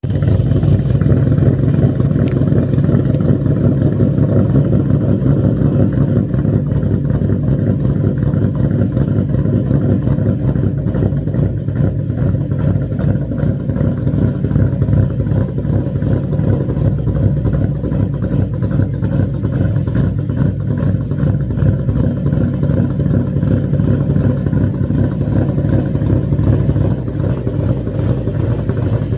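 2017 Ford Mustang GT's 5.0-litre Coyote V8 at a rough, loping idle, the choppy idle of a ghost-cam tune, exhaling through aftermarket headers. The engine note holds steady throughout.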